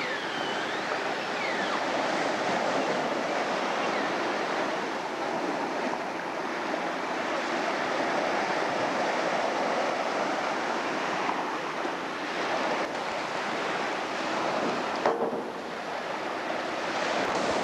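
Small waves breaking and washing up a sand-and-pebble beach, a steady surf hiss. A brief sharp click about fifteen seconds in.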